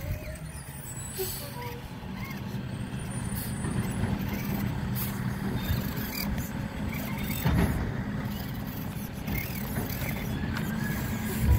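Garbage truck's diesel engine running steadily at a distance, a low drone with a short hiss about a second in and a single knock about two-thirds of the way through.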